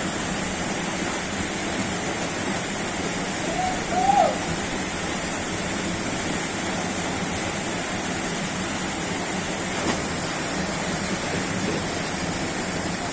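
Waterfall rushing steadily, with a brief shout of a voice about four seconds in.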